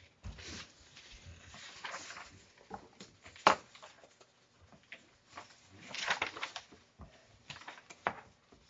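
Sheets of paper rustling and being shuffled, with scattered light knocks on a table and one sharp tap about three and a half seconds in.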